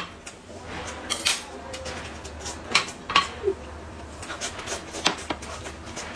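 Eating at a table: chewing and mouth sounds, with short clinks of chopsticks against bowls and plates scattered through.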